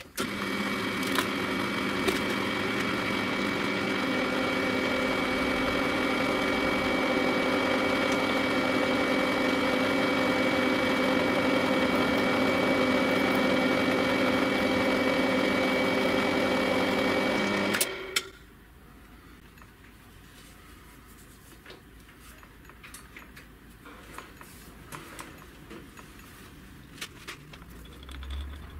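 WEISAN RC210E mini lathe running at a steady speed with an even whine, its spindle turning a steel sleeve under a knurling tool that is rolling a diamond knurl into it. The lathe shuts off about two-thirds of the way through, and only faint clicks of handling follow.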